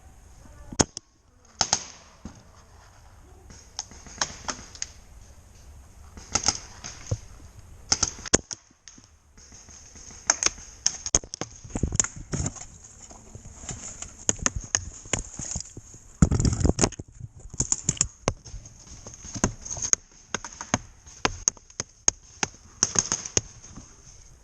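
Paintball markers firing during a game: sharp pops, irregular, some single and some in quick strings, with a heavier thud about two-thirds of the way through.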